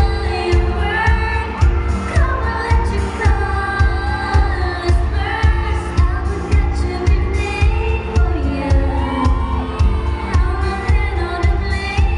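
A woman singing a pop song into a microphone over backing music with a steady bass beat.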